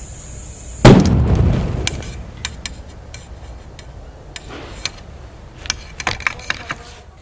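A rubber air spring (pneumatic suspension bellows) bursting under pressure: one very loud bang about a second in, cutting off a steady high hiss, followed by a rush of escaping air that fades over about a second. Scattered small clicks and rattles follow, with a cluster near the end.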